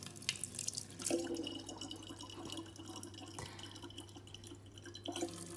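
A thin stream of water from a tap trickling faintly into a large plastic water bottle, with a few light drips.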